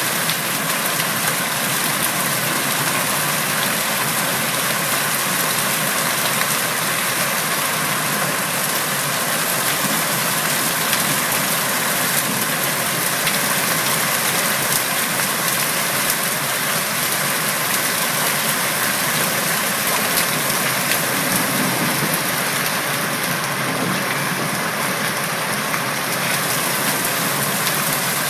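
Hailstorm: heavy rain and hail pelting the street, pavement and foliage in a steady, unbroken hiss.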